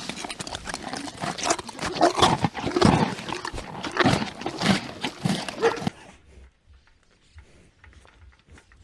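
Farm animals calling and moving, a dense run of irregular cries and noises that cuts off suddenly about six seconds in, leaving only faint scattered sounds.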